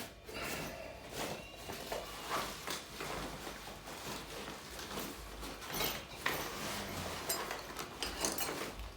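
Irregular knocks, clicks and scraping of washing machine parts being handled and worked on by hand, with a sharper knock about six seconds in.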